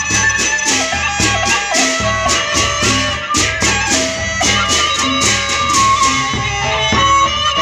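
Lombok gendang beleq ensemble playing: large barrel drums beaten with sticks and a row of hand cymbals clashing in a steady beat of about three strokes a second, under a sustained, wavering suling (bamboo flute) melody.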